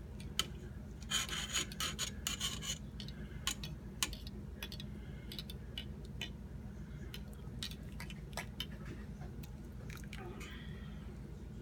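Kitchen utensil stirring cooked angel hair pasta in a cooking pot: a rasping scrape in the first few seconds, then scattered sharp clicks and taps of the utensil against the pot.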